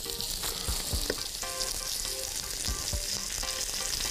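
Bone-in beef shank slices searing in olive oil in a very hot cast-iron skillet: a steady sizzle with small crackles and pops. It is the sizzle that shows the pan is properly hot.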